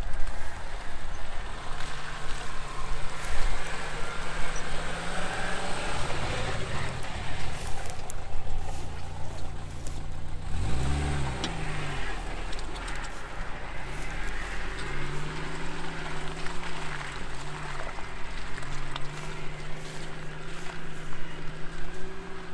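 Car engine working off-road, its pitch wavering as the throttle changes, with a quick rev up and back down a little before halfway. A rough, noisy rumble runs underneath.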